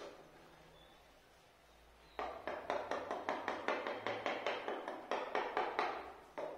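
Hammer tapping rapidly on the concrete floor, about five strikes a second, starting about two seconds in, chipping at the floor along the door frame.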